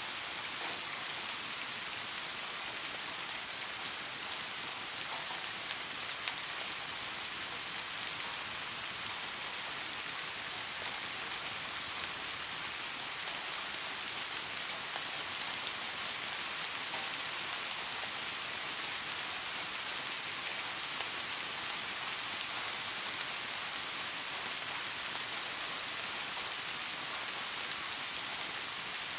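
Steady rain: an even hiss with a faint patter of drops that does not change.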